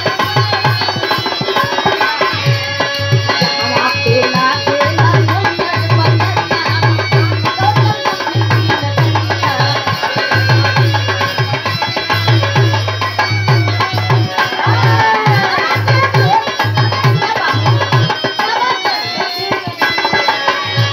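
Live folk song: a dholak beating a steady rhythm under harmonium, with a woman's voice singing.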